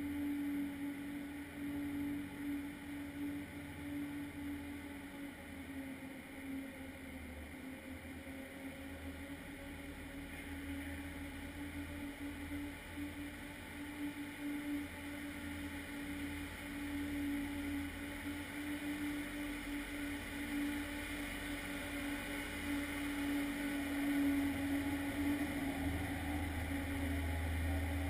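Ice resurfacer's engine running with a steady hum and low rumble, growing louder over the second half as the machine comes close.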